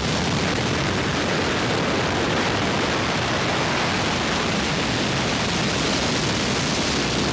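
Steady noise of a light high-wing aircraft in flight: engine drone mixed with rushing air, unchanging throughout.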